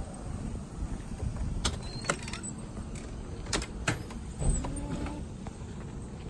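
Low steady rumble of an ambulance heard from the patient compartment, with four sharp clicks in the middle and a short rising squeak about four and a half seconds in.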